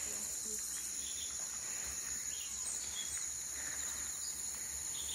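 A steady, high-pitched chorus of insects, with a few faint chirps over it.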